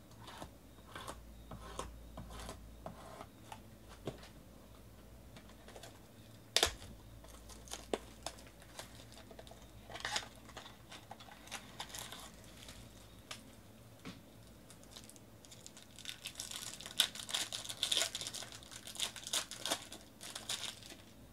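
Card packaging being handled and opened: scattered clicks and rustles of a Bowman Sterling box and sealed pack, with one sharp snap, then dense crinkling and tearing as a silver foil card pack is ripped open in the last few seconds.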